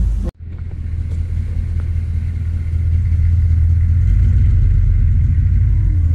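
Pickup truck engine running as it crawls across muddy off-road ground: a steady low drone that slowly grows louder.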